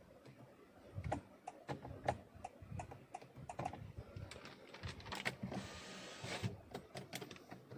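Faint, fairly even ticking, about three clicks a second, from the Honda City's turn-signal indicator, with a short hiss about five and a half seconds in.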